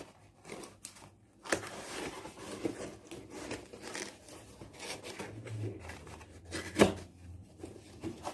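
Packaging being handled while a laptop is unboxed: scattered rustling, scraping and light clicks, with a knock about a second and a half in and a sharp click near the end.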